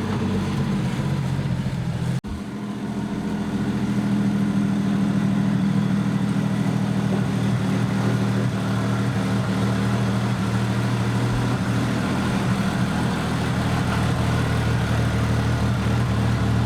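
Small-block Chevy 350 V8 in an old Chevy squarebody pickup running at a steady idle, brought back to life after years parked. There is a brief break about two seconds in.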